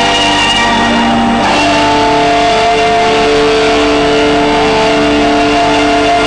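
Loud accompaniment music for the routine: long held chords that change about a second and a half in.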